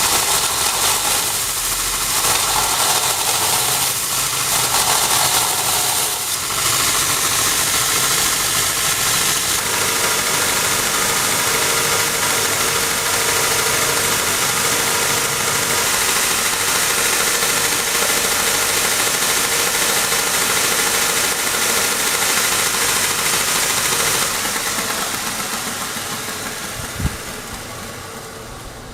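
A workshop machine running steadily, its motor hum mixed with a harsh metal-working hiss, which fades out over the last few seconds.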